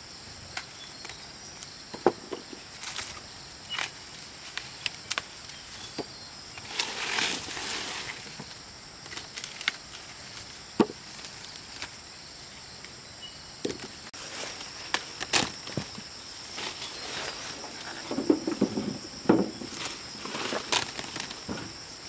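Corn being harvested by hand: scattered sharp snaps and knocks with bursts of rustling stalks and leaves, over a faint steady high hum.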